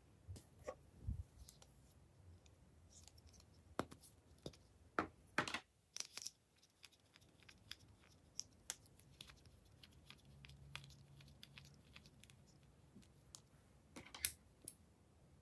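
Hands handling plastic lip balm tubes and caps: scattered light clicks and taps, with a few louder short scrapes about four to six seconds in and again near the end.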